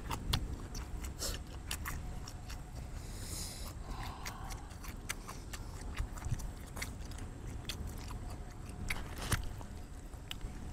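Eating sounds: bites into sausage and chewing of noodles, heard as scattered sharp clicks.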